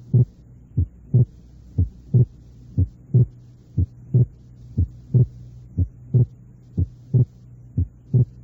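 Heart sounds at about one beat a second: each beat is a first heart sound followed by a split second heart sound. The split is the fixed splitting that does not change with breathing, typical of an atrial septal defect. A steady low hum runs underneath.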